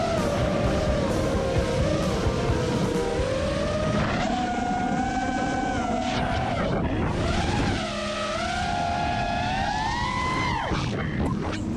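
FPV quadcopter's brushless motors and propellers whining, the pitch rising and falling with the throttle and dropping sharply near the end.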